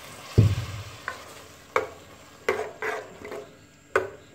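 A spoon stirring chickpea curry in a metal cooking pot, clinking and scraping against the pot about six times. A low thump comes about half a second in and is the loudest sound.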